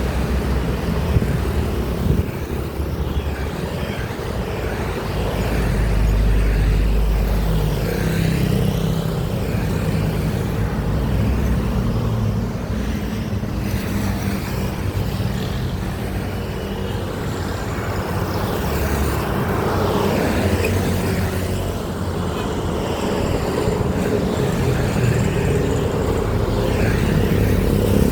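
Heavy road traffic, with truck engines running as vehicles pass by and rumbling engine notes that rise and fall over steady tyre and road noise.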